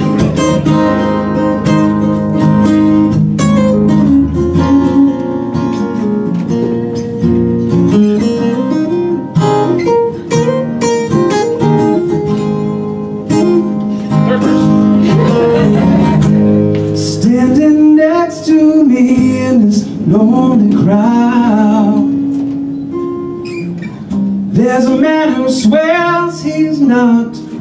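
Live acoustic guitar music with a voice singing over it, the sung notes held and wavering most clearly in the second half.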